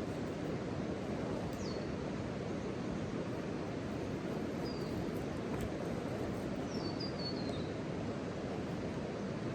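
Steady rushing background noise with a few short bird chirps that slide downward in pitch: one about one and a half seconds in, one near five seconds, and a quick run of several around seven seconds.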